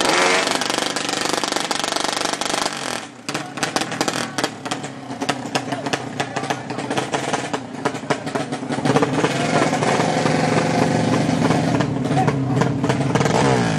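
A 200cc drag-race motorcycle engine at the start line, first revved in quick stuttering blips, then held at higher revs. Its pitch rises near the end.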